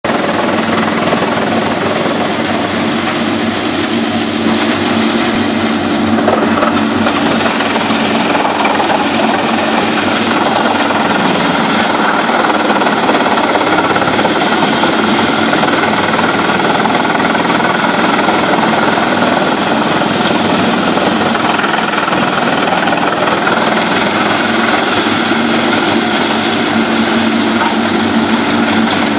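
Pezzolato PTH 1000/1000 truck-mounted drum wood chipper running steadily while chipping scrap timber: a loud, constant mechanical din with a steady hum beneath it.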